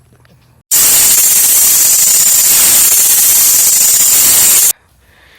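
A loud burst of white-noise static, like a detuned TV, lasting about four seconds and switching on and off abruptly at a flat, unchanging level: an edited-in static sound effect.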